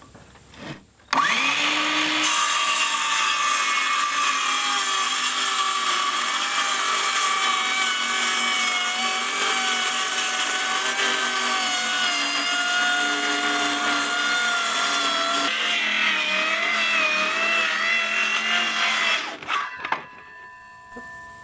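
Cordless circular saw spinning up about a second in and making a long rip cut through a board, its pitch wavering under load, then switching off and spinning down near the end.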